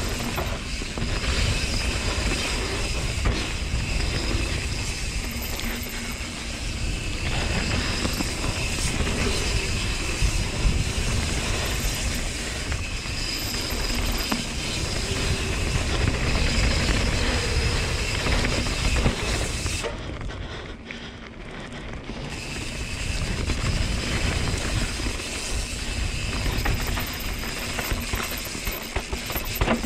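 Mountain bike being ridden over a rough gravel trail: wind rushing over the camera microphone with the tyres, chain and frame rattling. Briefly quieter about two-thirds of the way in.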